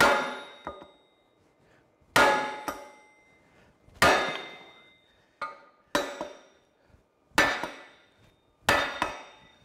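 An 8-pound sledgehammer pounding a socket against the rear axle shaft of an Allis-Chalmers D17 final drive. There are six heavy metal-on-metal blows about every one and a half to two seconds, each ringing and fading, some with a lighter rebound tap after. The shaft is being driven out of the bull gear a little at a time.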